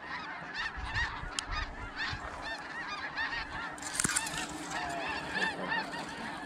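Snow geese calling in a dense, continuous chorus of many overlapping short honks from a large flock. About four seconds in there is a brief rustle of dry grass.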